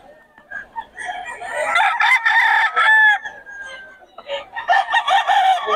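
Roosters crowing: one long crow a second in that ends on a drawn-out held note, and a second crow starting near the end.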